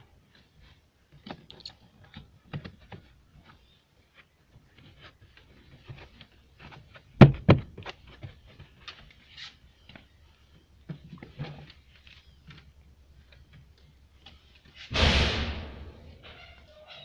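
Hands handling loose wiring and the car's boot-sill trim: scattered light clicks and rustles, a single sharp knock about seven seconds in, and a louder scraping rustle lasting about a second near the end.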